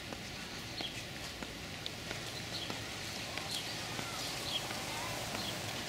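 Outdoor ambience of small birds chirping, short high chirps scattered every second or so, over a steady background hiss, with occasional footsteps on a paved path.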